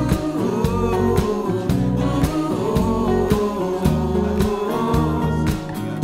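Background music with a steady beat and a bass line.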